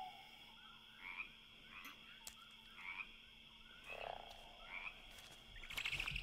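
Frogs croaking in a night-time cartoon ambience, faint short calls about once a second, five in all. A louder noise starts just before the end.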